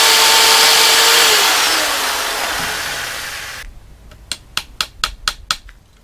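Corded handheld electric power tool running loudly with a steady whine while cutting a small piece of wood; the whine stops about a second and a half in, and the noise fades for two seconds before cutting off. Then comes a quick run of about seven light knocks as a wooden strip is worked into place on the frame.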